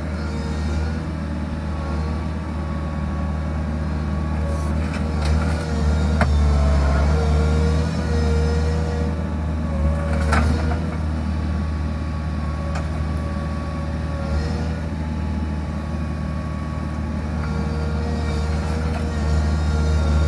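Bobcat Toolcat 5600's diesel engine running steadily under load, with a slightly wavering whine over its low hum. A few sharp knocks cut through it, the clearest about six and ten seconds in.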